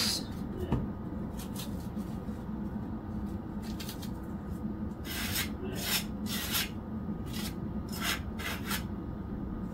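A butter knife scraping butter across toast in short rasping strokes, a few scattered at first and then a quicker run of them in the second half.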